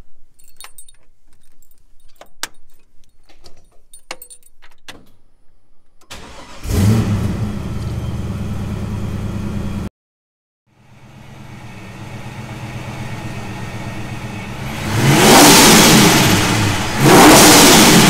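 Scattered light clicks and taps, then a car engine starts and runs loudly until it cuts off suddenly. After a short gap a car engine idles and is revved hard twice near the end.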